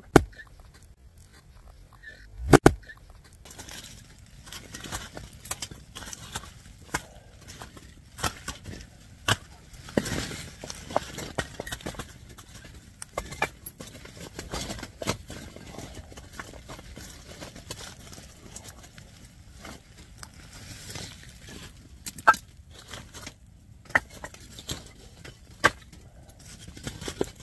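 Irregular wooden knocks and clacks of firewood being handled, with a few louder sharp strikes among lighter clatter.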